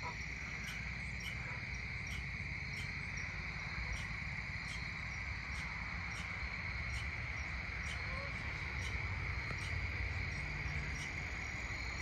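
Evening chorus of crickets: a steady high trill with regular short chirps a little under twice a second, over a low rumble.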